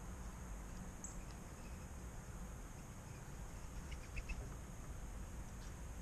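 Faint outdoor ambience, a steady low rumble and hiss. Over it come a few short, high chirps and ticks from birds at the feeder, clustered about four seconds in.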